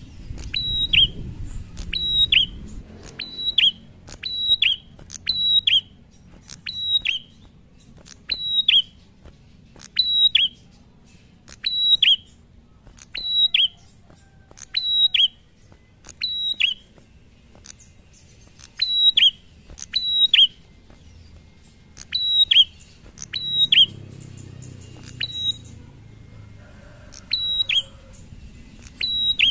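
A caged prenjak singing: a sharp, high two-note call repeated about once a second, each note dropping quickly in pitch, with a short break about two-thirds of the way through and again near the end.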